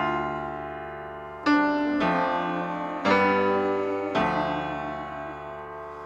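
Background music: slow, sustained chords, a new one struck every second or so and each fading away before the next.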